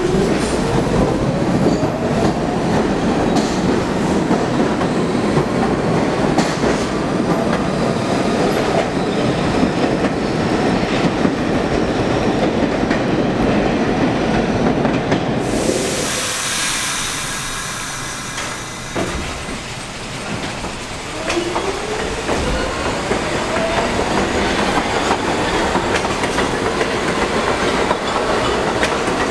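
New York City subway train pulling out along the platform, its motors whining upward in pitch under the clatter and squeal of the wheels. After a break about halfway through, another train runs past with a second rising motor whine over the clatter of its wheels.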